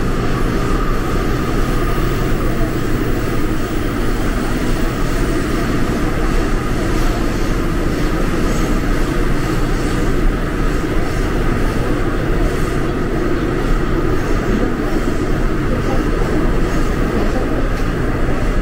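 Daejeon Metro Line 1 subway train running: a steady rumble and rush of wheels and motors, with a faint steady whine, and no let-up.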